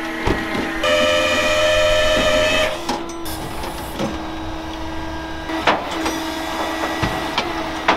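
Hydraulic pump of a Jerr-Dan rollback tow truck whining steadily as the bed is worked, its pitch and loudness stepping up and down with the load. It is louder for about two seconds near the start, with a few sharp metal clanks.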